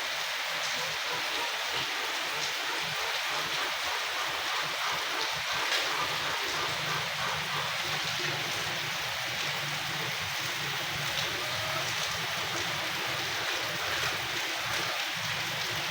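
Steady rushing water noise, with a few faint ticks scattered through it.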